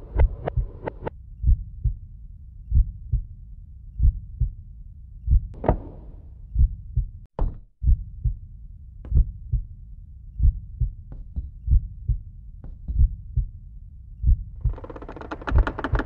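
Soundtrack heartbeat effect: deep thumps, mostly in pairs, repeating about once a second, the kind used to build tension before a fight. Near the end a fuller, denser sound swells in over the beat.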